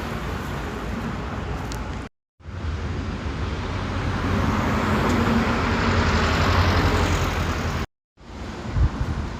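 Steady road traffic noise with a low engine hum, swelling louder in the middle as a vehicle passes. It is cut to silence twice for a moment.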